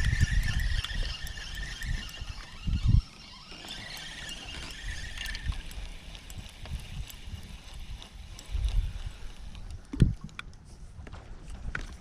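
Wind buffeting the microphone in uneven low gusts, with a faint steady high whine through the first half that fades out about halfway. A few light ticks near the end.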